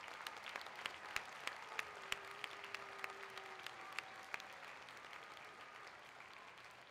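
Audience applauding, a wash of clapping with single hand claps standing out, slowly tapering off toward the end.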